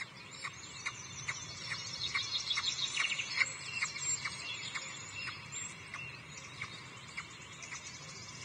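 Wild songbirds singing and chirping around the nest, busiest a couple of seconds in, with one short sharp call repeated evenly about twice a second.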